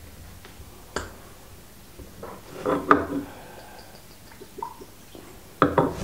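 Whisky poured from a small glass sample bottle into a stemmed nosing glass: gurgles and splashes, loudest around the middle and again just before the end, with a sharp click about a second in.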